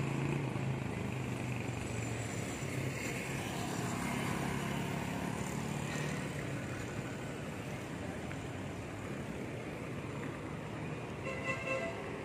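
City street traffic noise: a passing vehicle's engine hum fades over the first few seconds, leaving steady road noise, with a brief horn toot near the end.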